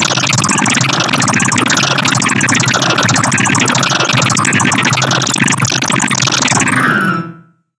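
Black MIDI playback: thousands of synthesized notes sounding at once, a dense, noisy wall of sound with repeating sweeps up and down in pitch. It fades out quickly near the end.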